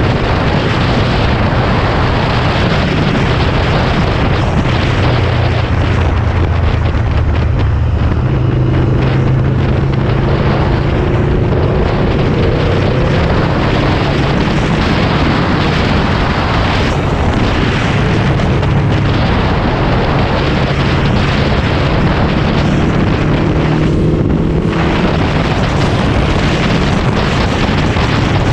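Heavy wind buffeting on the microphone of a motorcycle at highway speed, with the engine running steadily underneath; the engine note changes about eight seconds in.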